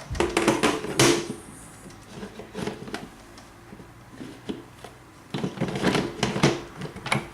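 Lid of a Pressure King Pro electric pressure cooker being fitted and twisted into its locked position, with bursts of clicks and clatter in the first second and again over the last two seconds.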